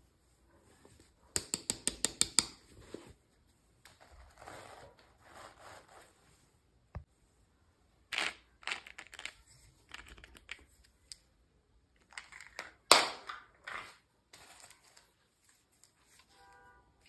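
Packaging being handled and opened by hand: a quick run of about eight sharp clicks, then rustling and crinkling, with more sharp snaps and clicks later.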